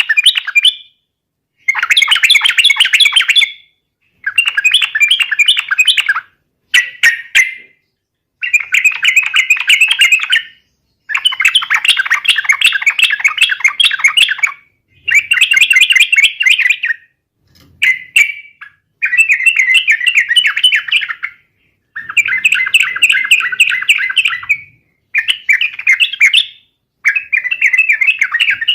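Yellow-vented bulbul in full song: about a dozen bursts of rapid, bubbling chattering notes, each one to three seconds long, separated by short pauses.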